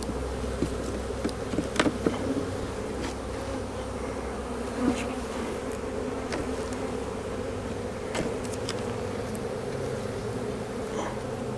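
Honey bees buzzing in a steady, droning hum around an opened hive, with a few faint clicks scattered through.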